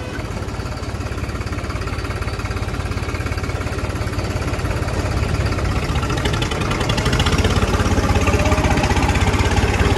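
New Holland 3630 tractor's three-cylinder diesel engine running under way, heard from the driver's seat as a steady, fast low pulsing that grows somewhat louder in the second half.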